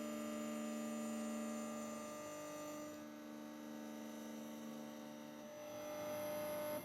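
Steady machine hum made of several held tones, shifting a little partway through and cutting off abruptly at the end.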